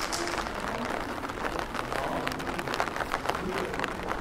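Light rain pattering close by: a dense, irregular crackle of small ticks over a low street hum.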